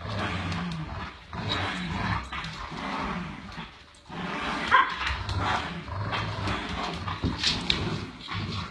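Dogs growling almost without a break while tugging on a rope toy, with a sharp bark about four and a half seconds in and a couple more short barks near the end.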